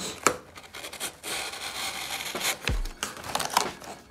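Cardboard box being torn open and handled by hand: a few sharp clicks, then a rough tearing rasp lasting about a second and a half, then two dull thumps near the end.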